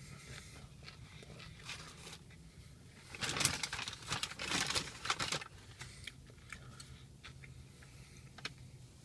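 Loud crinkling and rustling of a paper burger wrapper being handled, lasting about two seconds from roughly three seconds in, between quieter stretches of faint ticks.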